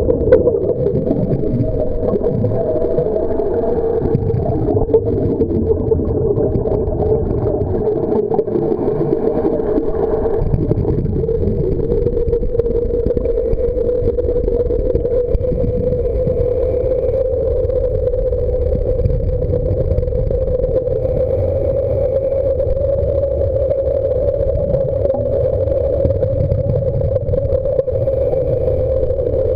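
Steady motor hum heard underwater, drifting slightly in pitch over a low rumble: the battery-driven propeller motors of BOSS underwater scooters running.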